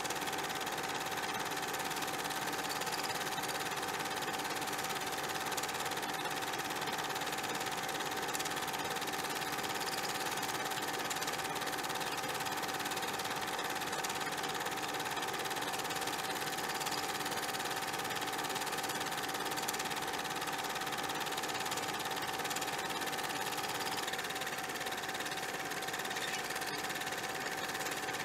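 A steady mechanical whirring hum with a constant tone and no rhythm that stands out. Its pitch shifts slightly near the end.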